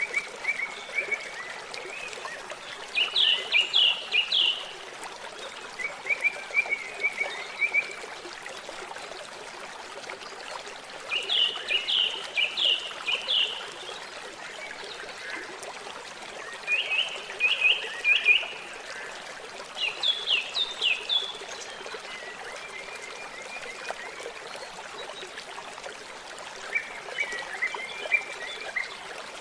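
Water trickling steadily at a lake's edge while a bird sings short trilled phrases of rapid notes, one phrase every few seconds, some higher-pitched than others.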